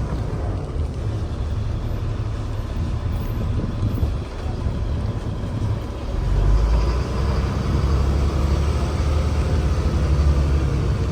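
Tour bus engine running as the bus drives along, a steady low rumble that grows louder and deeper about six seconds in, as if the engine is pulling harder.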